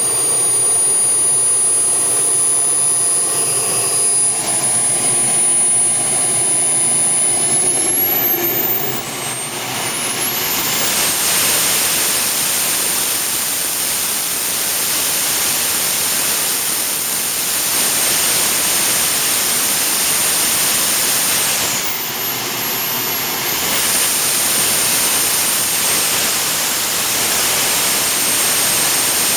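Jets-Munt Merlin M100 model turbojet running at full power, around 150,000 rpm: a loud, steady jet roar with a thin, high-pitched turbine whine. The whine glides sharply upward about eight to ten seconds in, then holds steady, with a brief jump higher just past twenty seconds.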